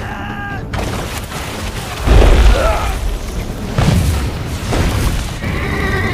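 Film battle soundtrack: a man shouts at the start, then heavy booms of fire cannon and explosions, the loudest about two seconds in with another near four seconds, over background score music.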